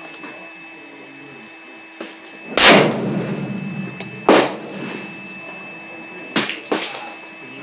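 Rifle shots: a loud shot about two and a half seconds in with a rumbling tail, a second sharp report under two seconds later, then two quieter sharp cracks close together near the end.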